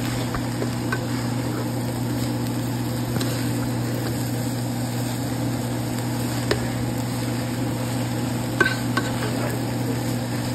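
Eggroll-in-a-bowl filling sizzling in a hot pan as it is stirred with its sauce, with a few sharp clicks of the utensil against the pan, over a steady low hum.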